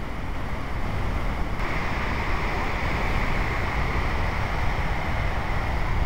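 Wind rumbling on the microphone over a steady rushing hiss, growing a little louder about a second and a half in.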